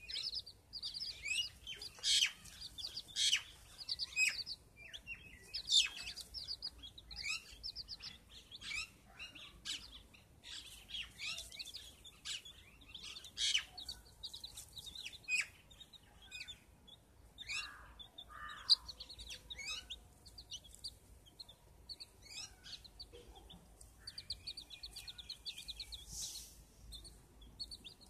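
Chickens' chicks peeping: a steady stream of short, high chirps and quick runs of chirps, several birds overlapping. A single sharp tap stands out about two-thirds of the way through.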